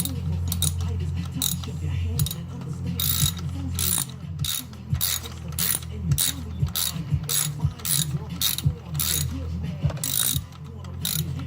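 Hand ratchet wrench clicking in short irregular bursts of strokes as it tightens fasteners on a Toyota Corolla engine.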